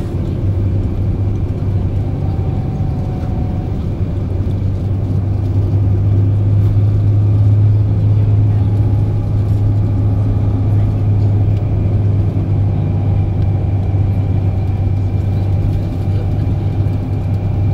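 Scania K400EB coach moving along the road, heard from inside the passenger cabin: a steady low engine and road drone that swells a little about a third of the way in.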